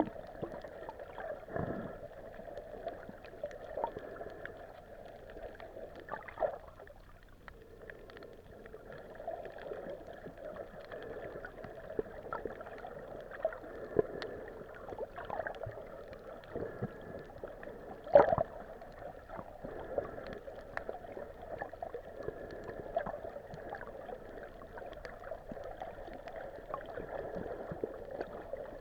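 Underwater sound picked up by a hand-held camera below the surface: a steady muffled water rush with scattered short clicks and knocks, the loudest about eighteen seconds in.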